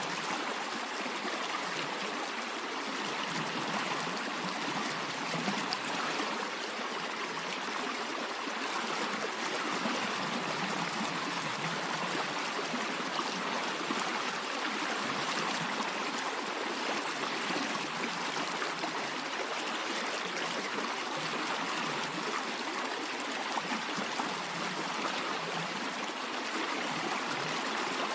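Stream water flowing steadily, an even rushing and trickling with no breaks.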